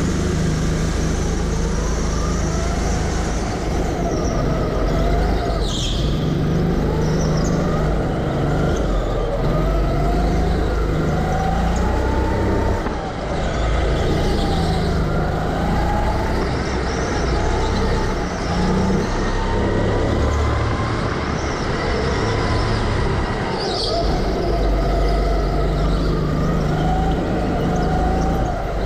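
A go-kart's motor running from the driver's seat as the kart laps the track, its pitch rising and falling over and over as it speeds up on the straights and slows for the corners.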